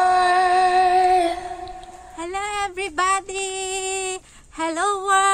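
A woman singing in long held notes. The first note fades out about two seconds in, and after a short pause she sings several more phrases with brief breaks between them.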